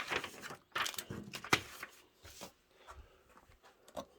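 Paper and cardboard being handled: a few short rustles and taps in the first second and a half, then fainter scattered handling sounds.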